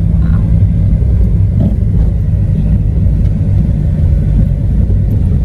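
Steady, loud low rumble of a vehicle under way: engine and road noise.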